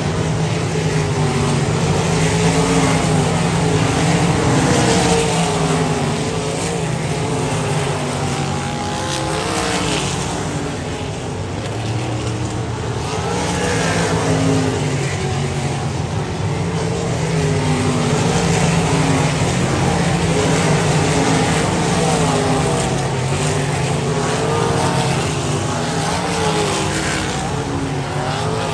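A field of winged sprint cars racing at high revs: several V8 engines at once, their pitch rising and falling as cars pass close by and sweep through the turns.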